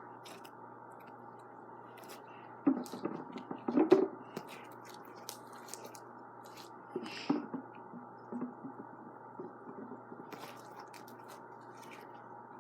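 Hands squeezing and poking slime, giving scattered soft squishes and crackly clicks, loudest about three to four seconds in and again around seven seconds.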